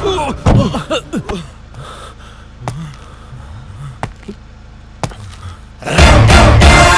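Film sound effects: a car's tyres skidding to a stop at the start, then a few sharp knocks about a second apart over near quiet, before loud music comes in about six seconds in.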